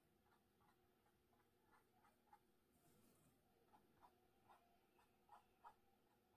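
Very faint, short dabbing strokes of a fine paintbrush tip on a stretched canvas print, a few a second, over near-silent room tone.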